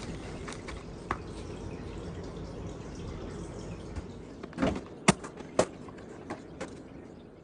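Running or dripping water with a handful of sharp clicks and knocks, loudest a little after five seconds in.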